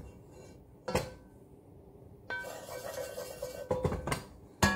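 Wooden spatula working oil around a cast iron skillet, knocking and scraping against the pan. There is a sharp knock about a second in, and near the end a couple of clanks that ring on briefly.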